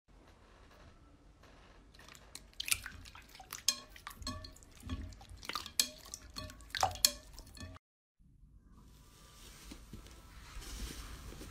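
Glossy clear slime being poked and squeezed by hand, giving irregular wet clicks and small pops. The sound cuts out about eight seconds in, and a fainter steady hiss follows.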